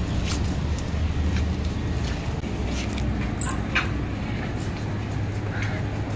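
Street noise: a steady low rumble of traffic with scattered clicks and taps, one sharper click about halfway through.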